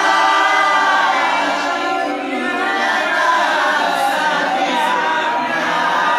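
A single voice reciting the Qur'an in melodic tajwid style, drawing out long ornamented notes that bend up and down, in maqam Hijaz.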